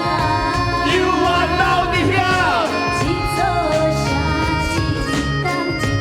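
Music with a steady beat and a melody line that slides up and down between notes, in an instrumental break of a song.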